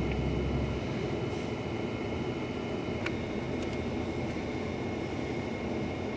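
Steady low rumble of outdoor background noise with a faint high steady whine held through it, heavier in the first second, and a single click about three seconds in.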